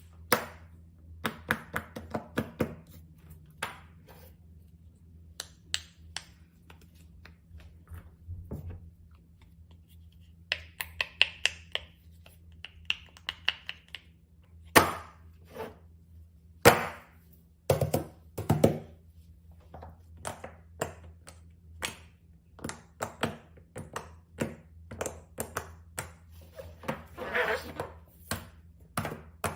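Small plastic fidget toys being handled, giving irregular clicks, taps and knocks, a few louder than the rest. A faint steady low hum runs underneath.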